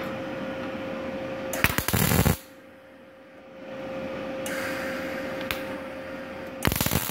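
MIG welding arc from a Multipro MIG-MAG 200G-SP welder striking short tack welds on thin steel plate. There are two short bursts of loud crackling sputter: one lasting under a second, about one and a half seconds in, and another starting near the end. A steady hum runs between them.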